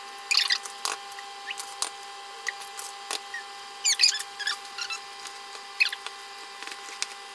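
Eggs cracked against a glass mixing bowl and dropped into the flour and cocoa, as a string of sharp clicks and taps. Near the end a wooden spoon scrapes and knocks around the bowl as the stirring starts. A steady faint hum runs underneath.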